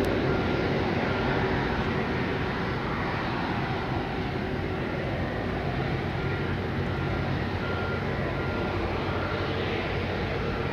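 Jet engines of an Airbus KC-30M tanker (A330 MRTT) running steadily: a dense rumble with a faint steady whine over it, easing off a little over the first few seconds.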